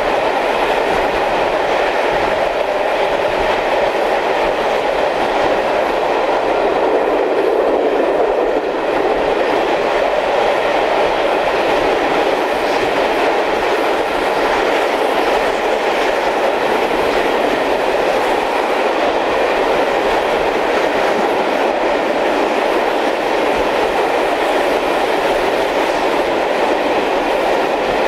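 Steady running noise of a steam-hauled passenger train, heard from an open carriage window while it is moving: wheels running on the rails and the carriage rolling along, a continuous loud rumble with no clear breaks.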